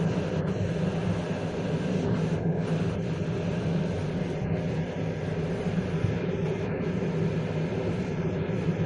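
Passenger train rolling along at speed, heard from inside the carriage: a steady, even rumble of wheels on track, with no distinct rail-joint clicks standing out.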